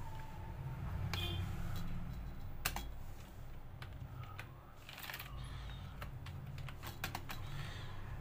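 Typing on a computer keyboard: irregular key clicks, some coming in quick runs.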